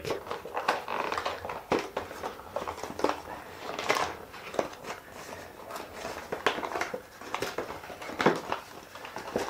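A small cardboard retail box being opened by hand: irregular scraping, rustling and clicking of card as the end flap is pried open and the contents are worked loose.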